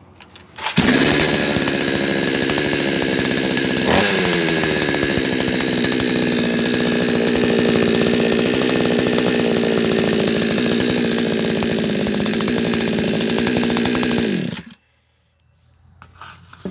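Stavr two-stroke petrol chainsaw starting about a second in and running, fast at first; about four seconds in, with a click, its speed drops and it settles to a steady lower speed, then it cuts off suddenly near the end. The saw runs normally with its newly replaced fuel hose, without leaking.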